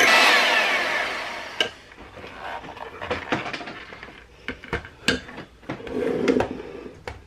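Electric hand mixer beating cream cheese, its motor whine falling away within about the first second as it is switched off and winds down. After that come several sharp clicks and knocks, the beaters and the glass bowl being handled.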